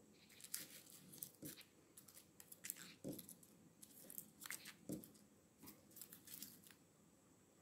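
Dry papery skin of a garlic bulb crackling and tearing as fingers peel it: a quick run of small crackles, with three soft thumps among them.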